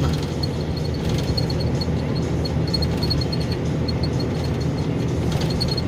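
Steady drone of a methane-fuelled KAMAZ truck's engine and road noise heard from inside the cab while driving, with a faint high-pitched ticking running through it.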